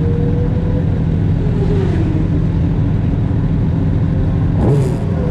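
Several sport motorcycles' inline-four engines idling together at a steady level, with a brief louder burst and quick pitch swing about four and a half seconds in.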